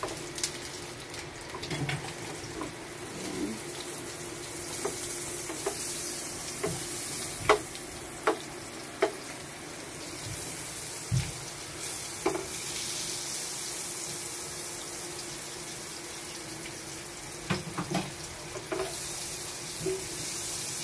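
Butter sizzling as it melts in a hot granite-coated non-stick frying pan, a steady hiss. A plastic slotted spatula knocks and scrapes against the pan now and then, several sharp clicks, the loudest a little after the middle.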